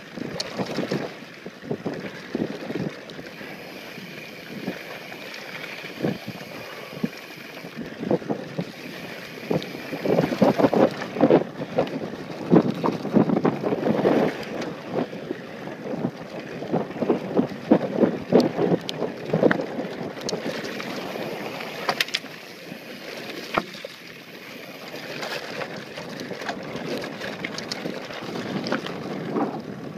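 Mountain bike riding fast down a dry, rocky dirt trail: tyres rolling and crunching over dirt and gravel, with rattles and knocks from the bike over bumps, heaviest in the middle, and wind noise on the microphone.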